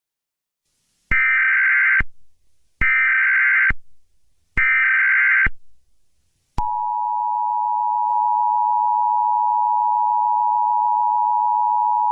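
Emergency Alert System SAME header: three short bursts of screechy digital data tones, each about a second long and about a second apart. About six and a half seconds in, the EAS attention signal follows: a steady two-pitch tone that holds unbroken.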